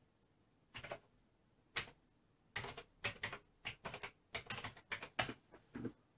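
Keys clicking on a Commodore 64G keyboard as a LOAD command is typed: about fifteen keystrokes, two spaced ones and then a quicker run through the last few seconds.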